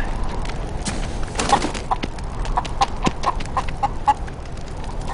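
A hen clucking in a short series of notes, about three a second, from a little over a second in until about four seconds in.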